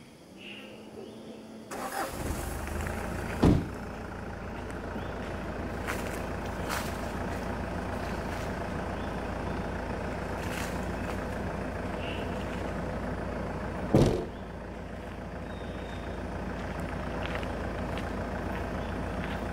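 Mitsubishi Pajero engine starting about two seconds in, then running steadily at idle. A car door slams shut shortly after it starts, and the rear swing door slams shut near the middle.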